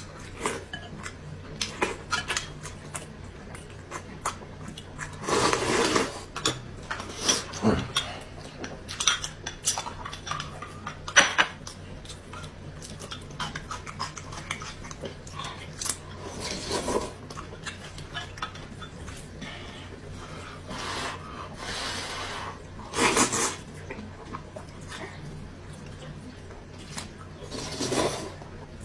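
Metal spoon and chopsticks clinking and scraping against glass bowls while eating, with several loud slurps of noodles.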